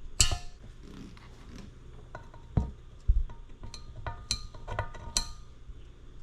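Steel bicycle spokes clinking against each other and the hub while being handled and laced into a rim: a dozen or so irregular light metallic taps, several with a short ring, and a few heavier knocks.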